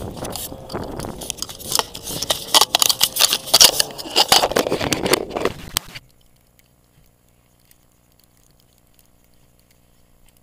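Camera handling noise: a dense, irregular crackling and scraping of something rubbing against the microphone, with many sharp clicks, which cuts off suddenly about six seconds in to a faint quiet.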